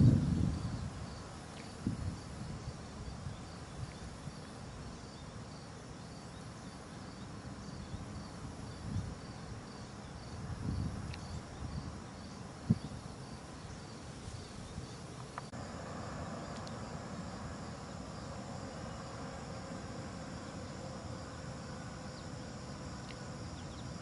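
Insects chirping in a high, evenly repeated rhythm, with a few low thumps, the loudest right at the start. About two-thirds of the way through a faint steady hum joins in.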